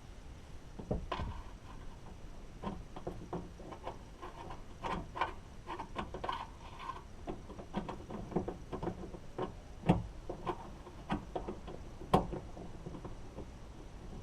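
Scattered small clicks and knocks of hand tools and metal door parts being handled while a car door's outside handle is fitted back on, with two sharper knocks about ten and twelve seconds in.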